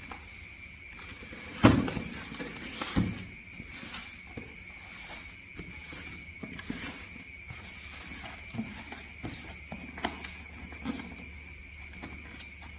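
Knocks and rustles of a box and packaging being handled, with a loud knock about two seconds in, another a second later and a sharp tap near the end. A steady high-pitched whine and a low hum run underneath.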